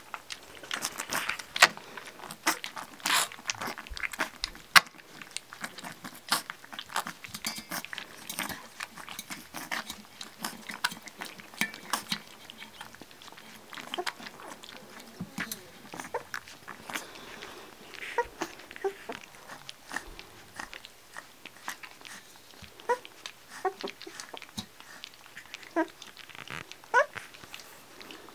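Yellow Labrador Retriever puppies lapping and slurping milk from a metal saucer dish: a busy run of wet smacks and clicks, densest in the first half. In the second half, a few short high squeaks rise in pitch among the lapping.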